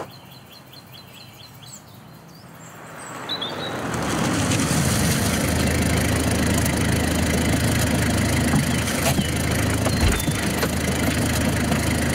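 A small car pulls up and idles: its engine noise swells in over about a second and then runs steadily. A few faint bird chirps come before it arrives, and there are a few sharp clicks near the end as its door is opened.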